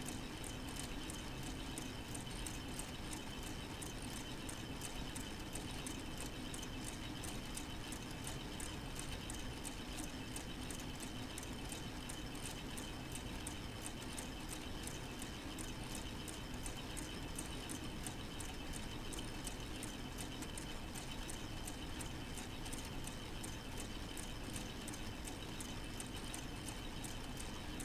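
A K'nex plastic model four-cylinder engine running steadily, its plastic rods and connectors clicking in a fast, even rhythm over a steady faint whine.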